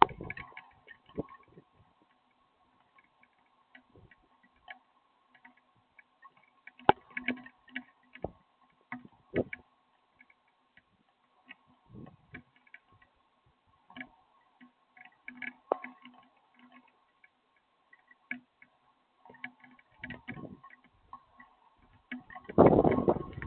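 Raindrops dripping and tapping irregularly, a scattered run of sharp ticks over a faint steady hum.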